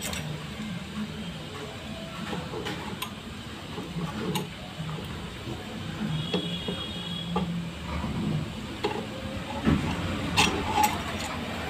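Steel cam timing chain of a TVS Ntorq 125 engine clinking and rattling as it is handled and fed past the piston and cylinder studs, with scattered light metal clicks and a few louder clinks near the end.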